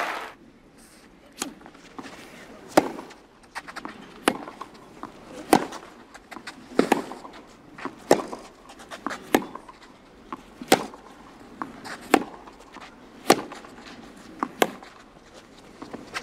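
Tennis racquets striking the ball back and forth in a long baseline rally on a clay court: a sharp pock about every second and a quarter, eleven strikes in all, with fainter knocks between.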